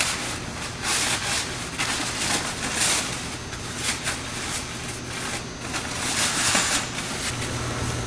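A disposable protective coverall rustling and crinkling in irregular swishes as it is stepped into and pulled up over clothes, over a low steady hum.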